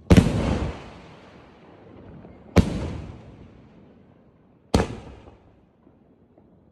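Sony Vinayaga fireworks combo display firing shots: three loud bangs about two seconds apart, each dying away over a second or two.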